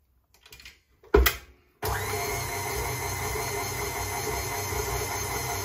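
A loud clunk about a second in, then a KitchenAid tilt-head stand mixer's motor switches on abruptly and runs steadily, its flat beater creaming margarine and sugar.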